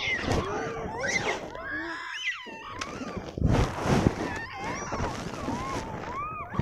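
A group of monkeys calling, many short rising-and-falling squeals overlapping one another, with a brief rush of noise about halfway through.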